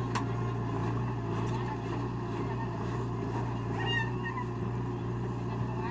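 Heavy diesel engine running steadily at an even pitch. A short high chirp sounds about four seconds in.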